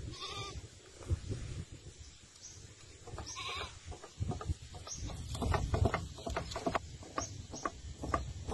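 Two short bleating animal calls, about three seconds apart, followed by a run of irregular clicks and taps.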